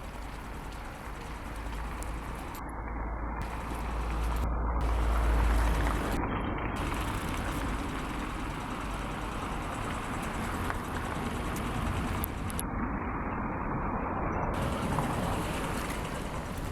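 Wind gusting across the microphone: a steady rushing noise with a low rumble that swells about four to six seconds in.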